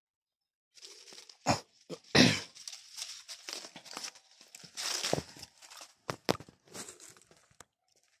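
Leaves and twigs of a duhat (Java plum) tree rustling and crackling as a branch is pulled down by hand to pick fruit, with several sharp snaps, the loudest a little over two seconds in.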